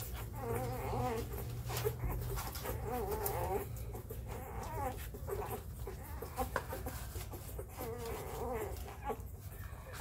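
Four-day-old Labrador puppies squeaking and whining as they jostle for their mother's teats while nursing. The thin, wavering squeals come in spells, the longest in the first few seconds, with a few short clicks between them.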